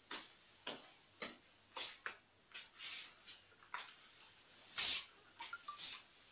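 Floor squeegee pushed in quick strokes across a wet floor: a dozen or so short swishes at an uneven pace, the loudest about five seconds in, followed by a brief squeak.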